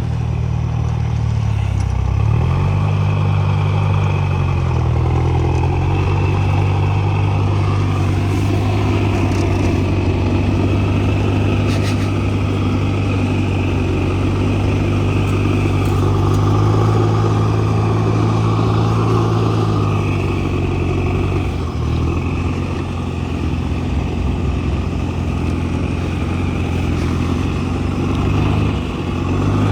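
Mitsubishi L200 pickup engine running under load, its revs dipping and picking up again a few times.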